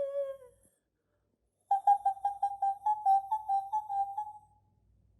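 A woman's wordless Sakha-style singing: a held, wavering note fades out just at the start, then after a second's pause comes a short phrase of quick pulsed notes on nearly one pitch, about four or five a second.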